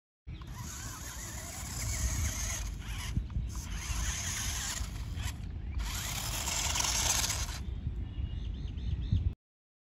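Toy RC rock-crawler truck's electric motor and gearbox whining as it drives through grass, in runs of a few seconds with short let-offs about three and five and a half seconds in. Near the end there are a few short rising-and-falling whines. The sound cuts off suddenly just before the end.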